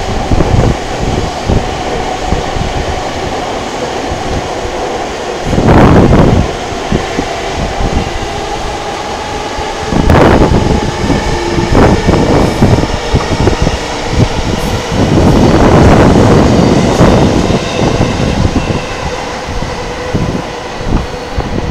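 Electric trains running on the tracks in and out of Tokyo Station, heard from above: a steady rumble with a faint steady whine. Several louder swells of wind buffet the microphone.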